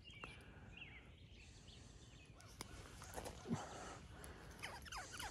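Faint outdoor background with scattered short bird chirps and falling whistled notes, a few soft clicks, and one low thud about three and a half seconds in.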